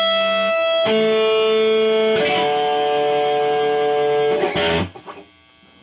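Epiphone Dot ES-335 semi-hollow electric guitar played through a Marshall 5005 amp with a little gain: a few long sustained notes, changing pitch about every second or two, then cut off sharply near the end.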